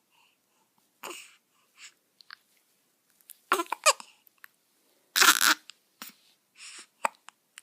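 Newborn baby hiccupping: a string of short, sudden hiccups and small noises at irregular intervals. The loudest is a burst of about half a second roughly five seconds in.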